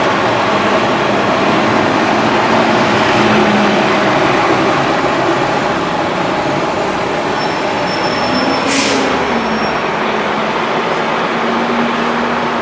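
Subway train running, a steady loud rumble and rush with faint sliding tones and a short hiss about nine seconds in.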